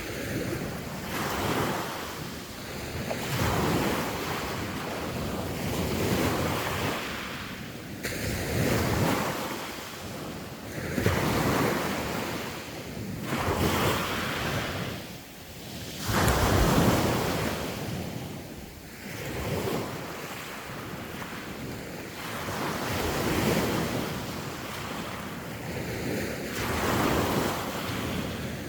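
Sea waves breaking and washing on the shore, a rush of surf that swells and falls every few seconds, the biggest wave about halfway through. Wind buffets the microphone throughout.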